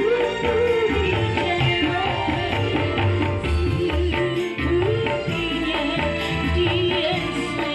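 Live electone keyboard music with a hand-drum rhythm and a woman singing a wavering melody into a microphone, played loud through a PA system.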